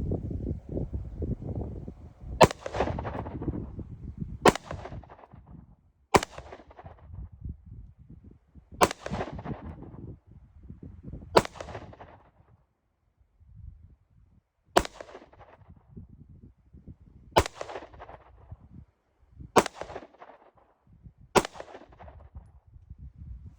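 Gun fired nine times in slow, single shots about two to three seconds apart, each a sharp crack with a short echoing tail. Wind rumbles on the microphone between shots.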